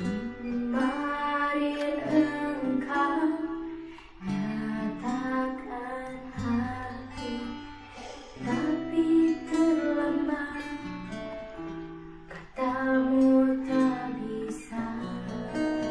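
A young woman singing a pop ballad softly over guitar accompaniment, in phrases with short breaks between them.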